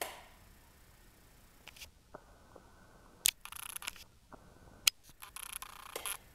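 A sharp click as the ceiling lights are switched off, followed a few seconds later by two more sharp clicks and short stretches of scratchy, crackling noise.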